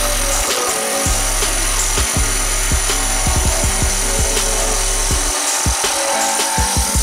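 A wood lathe spins a firewood pen blank on a pen mandrel while a hand-held chisel cuts it: a continuous hiss of cutting over a steady motor hum. Background music plays along with it.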